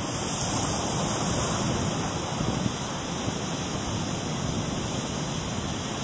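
Steady ocean surf washing on the beach, with wind rumbling on the microphone.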